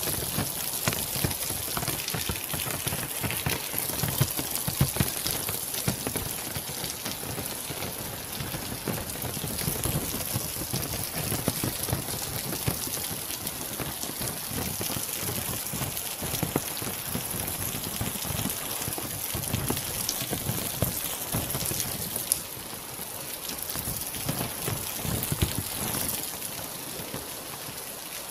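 Steady rain falling, with many separate close drops hitting among the even hiss of the downpour.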